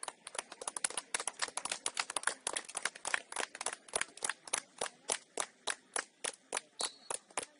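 Hands clapping: a run of sharp claps, dense at first, settling into an even two or three claps a second near the end.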